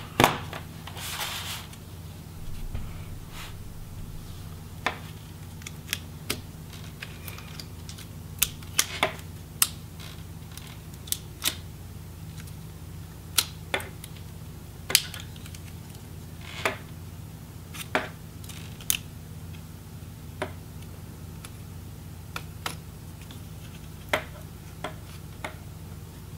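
Small sharp plastic clicks and taps, scattered a second or more apart with a few quick runs of two or three, as fingers flip up ribbon-connector latches and pop cable connectors off a Samsung Chromebook XE525QBB's motherboard.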